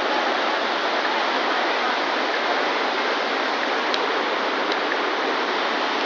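River rapids rushing over boulders, a steady, unbroken rush of whitewater.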